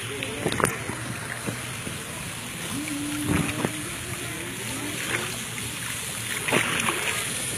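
Water sloshing and lapping close to a phone microphone as a person floats in a life vest in a swimming pool, with sharper splashes about half a second in, about three seconds in and near the end.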